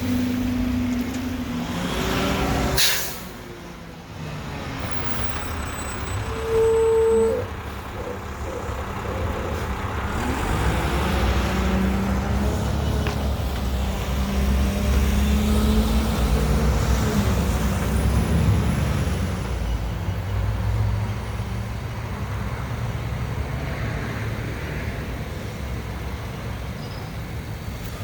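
Mack McNeilus front-loader garbage truck running, with a sharp burst of air-brake hiss about three seconds in. A short single-pitched tone sounds around seven seconds, and from about ten seconds the diesel engine swells and revs louder before easing off.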